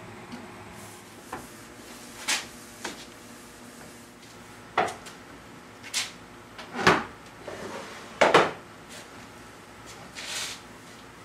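Sharp wooden knocks and clunks from an antique mahogany fall-front desk as it is handled and its slant lid is swung shut. There are about seven separate knocks, the loudest about seven and eight seconds in.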